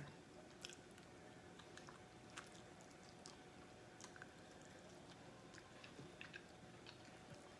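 Faint chewing while eating, over near-silence: soft mouth clicks and small sticky sounds scattered every fraction of a second.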